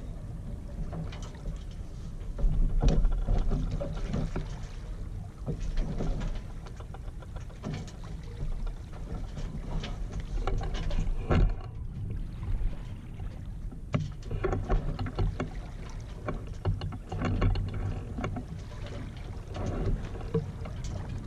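Water lapping and splashing irregularly against a Yamaha 24 sailboat's hull as it sails slowly in light wind, over a low wind rumble on the microphone that rises and falls. One sharper slap comes about halfway through.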